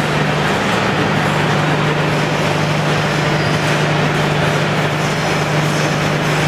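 Scrap metal shredding plant machinery running: a loud, steady industrial noise with a constant low hum beneath it.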